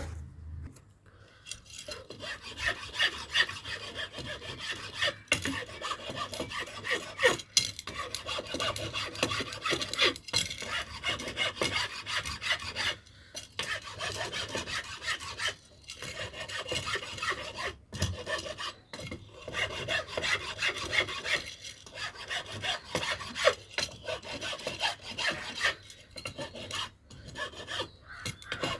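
A file rasping on the steel of a hand-forged knife blade in quick back-and-forth strokes. The filing pauses briefly every few seconds.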